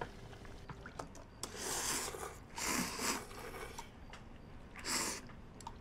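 A person slurping noodles: three noisy slurps, the last a short one near the end.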